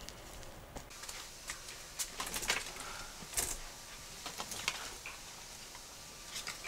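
Light handling noises: scattered soft clicks and rustles of small baby clothes and mesh laundry bags being handled.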